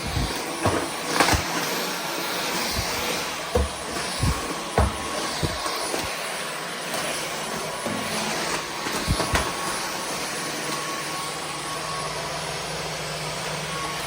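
Dyson V15 Detect cordless stick vacuum running steadily, with a faint steady tone over its noise. Short knocks and bumps come several times in the first half and twice more around nine seconds in.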